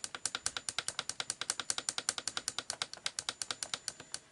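Rapid, even clicking, about ten clicks a second, from the plastic time-setting buttons of a Tesco CR104 clock radio being pressed over and over.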